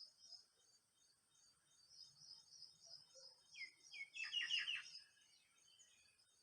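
Faint background with a high, rapid chirring pulsing steadily. A little past the middle a bird gives two short down-slurred calls, then a quick run of about four notes.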